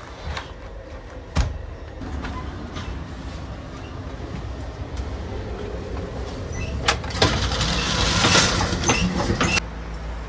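Amtrak Superliner passenger cars running on the rails. A sharp clack about a second and a half in comes from a sliding compartment door. The wheel-and-rail rattle and rumble grow much louder for a few seconds in the open gangway between cars, then drop off suddenly near the end as the door shuts behind.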